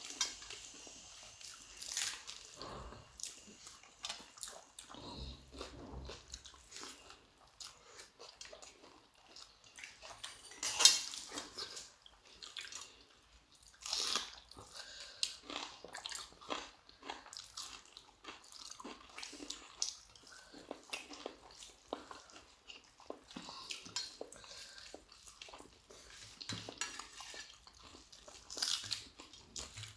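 People chewing and biting into food: a run of irregular crunches and small clicks, with one louder crunch near the middle.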